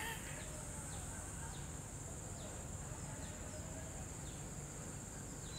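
Crickets or similar night insects making a steady high-pitched drone, with a faint falling chirp repeating about twice a second.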